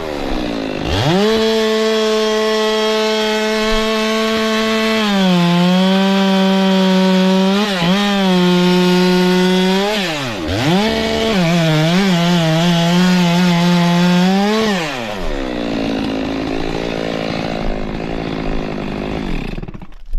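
Stihl two-stroke chainsaw running at full throttle, cutting wood: its pitch sags under load in the cut and drops sharply twice before climbing back. About three-quarters through the throttle is released and the saw winds down, stopping near the end.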